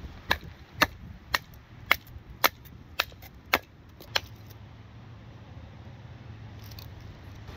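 Hammering or chopping: eight sharp blows at a steady pace of about two a second, stopping about four seconds in. A low steady rumble lies underneath throughout.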